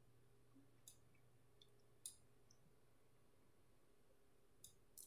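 Near silence with a few faint computer mouse clicks, about five, spread out with gaps between them, over a faint low hum.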